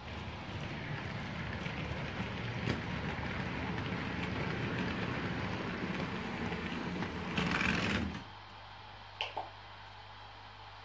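Model railway goods train rolling past close by: a steady rumble and clatter of wheels on the track that swells near the end of its pass and stops suddenly about eight seconds in. A couple of short clicks follow about a second later, over a steady low hum.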